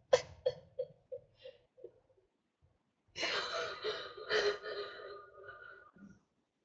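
A woman's stifled laughter: a run of short, evenly spaced breathy bursts, then a long wheezing, hissing laugh held back behind her hands.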